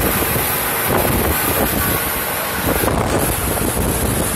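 Wind buffeting the microphone on a moving small boat, with the boat's motor running steadily underneath.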